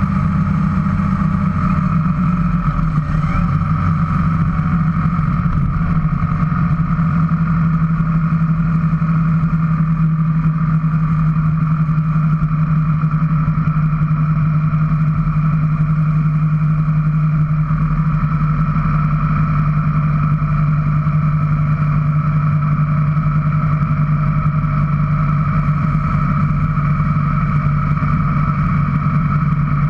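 Motorcycle engine running steadily while riding at road speed; the engine note drops a little about a second in, then holds steady.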